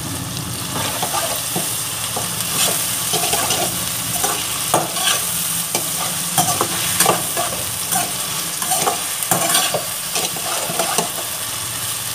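Chopped tomatoes and onion sizzling in oil in a kadai, salted so the tomatoes break down, while a perforated steel ladle stirs them, scraping and clinking against the pan in quick, irregular strokes over a steady frying hiss.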